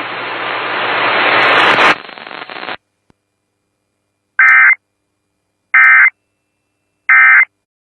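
Radio static hiss for about two and a half seconds after the alert voice stops, then cutting off. Then come three short, identical digital data bursts about 1.3 seconds apart: the Emergency Alert System end-of-message (EOM) tones that close an alert.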